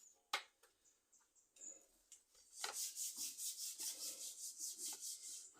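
A sharp click, then after a pause quick rhythmic scraping strokes, about four or five a second, as of something being rubbed or filed back and forth by hand.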